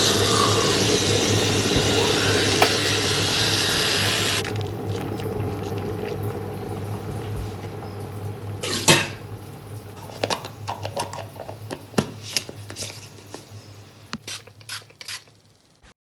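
Running water, steady and loud, which stops abruptly about four seconds in, leaving a low hum. Scattered clicks and knocks follow, with the loudest about nine seconds in.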